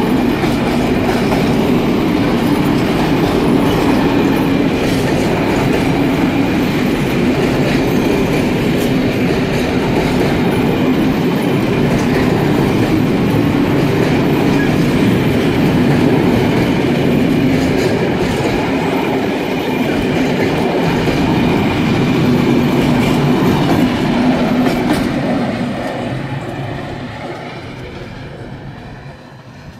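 Freight train of container-laden flat wagons rolling past close by, a steady rumble of wheels on the rails. About 25 seconds in the last wagon passes, and the sound fades as the train moves away.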